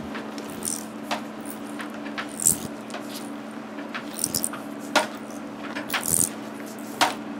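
Ultrasonic cavitation body-contouring machine running with a steady low hum while its handpiece is worked over gel-coated skin. Irregular clicks, crackles and short hissy rustles come from the handpiece and the plastic gloves.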